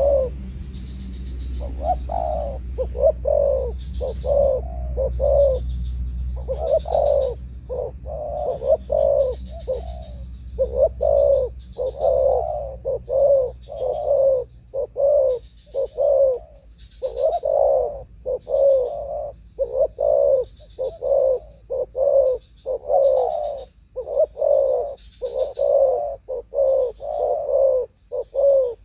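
Spotted doves cooing: a long, steady run of low, rounded coos in short groups of three or four notes, one group following another with brief pauses.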